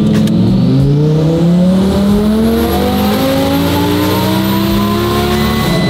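Twin-turbocharged Audi R8 V10 at full throttle on a chassis dyno, revving up through one gear in a single long, steady rise in pitch. A high whine climbs along with it. The pull ends suddenly near the end as the throttle closes.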